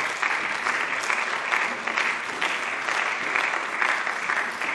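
Applause from a seated assembly of parliament members, many people clapping steadily.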